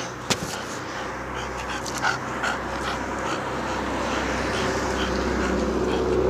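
Bulldog panting and snuffling close to the microphone as she chases and jumps at the person filming, with short repeated breathy sounds over a steady noisy background.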